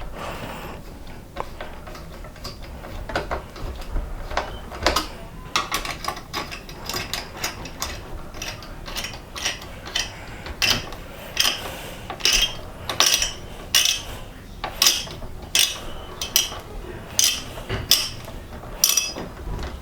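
Screwdriver tightening the CPU cooler's mounting screws, giving a run of sharp mechanical clicks that come faster and louder in the second half.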